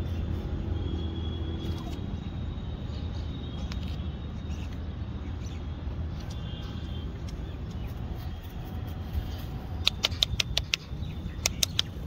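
Hoof pick scraping packed mud out of a horse's hoof sole, over a steady low rumble. Near the end come two quick runs of sharp clicks as the pick knocks against the hoof.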